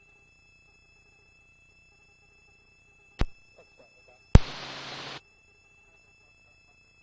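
Helicopter headset intercom feed: faint steady electronic tones, a sharp click about three seconds in, then a louder click and about a second of open-microphone hiss that cuts off abruptly, as a microphone keys on and off.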